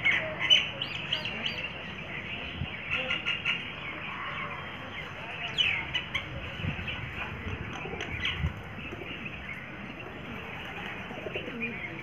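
Myna calling on its own: a running string of varied short chirps, clicks and whistles, among them a falling whistle about five and a half seconds in, growing sparser over the last few seconds.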